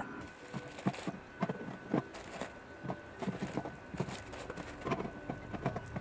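Aluminium drink cans being stacked by hand into a portable fridge: light, irregular clinks and knocks as cans touch each other and the fridge's plastic liner.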